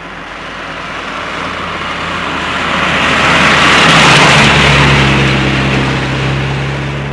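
A motor vehicle passing by: its noise swells to a peak about four seconds in, then fades as a lower engine hum takes over.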